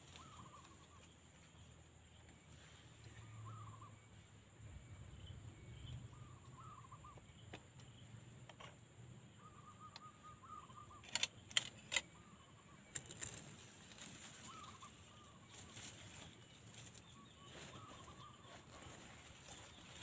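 Faint short quail calls repeated every second or two, with a cluster of sharp knocks and rattles from the wire-fronted trap cage a little past halfway.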